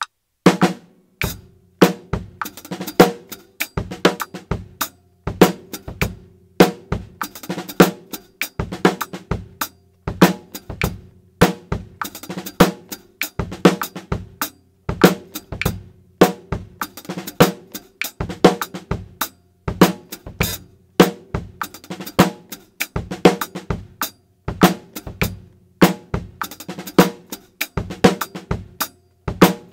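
Acoustic drum kit playing a repeating two-bar groove at 100 BPM: snare accents, bass drum and hi-hat, with the hi-hat foot pedal played as part of the pattern rather than only keeping time, plus quick double strokes as ornaments.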